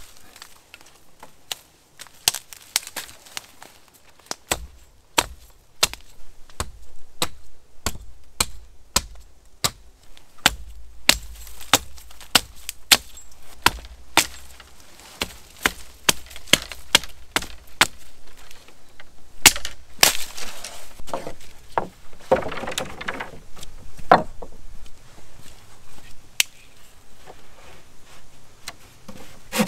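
Wood being chopped: an uneven series of sharp blade strikes on wood, sometimes several a second, with a few longer noisy stretches about two-thirds of the way through.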